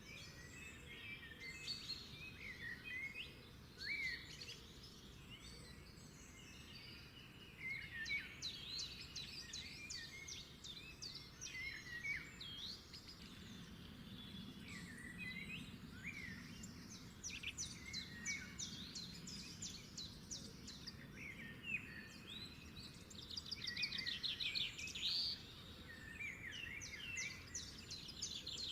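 Several birds chirping and singing together: quick chirps, fast runs of repeated trill notes and short rising and falling whistles, over a low steady hiss.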